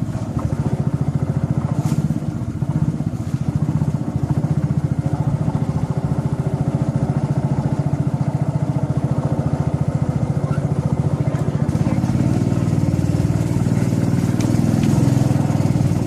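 Small boat motor running steadily as it drives a wooden canoe along, a rapid even putter that gets a little louder in the last few seconds.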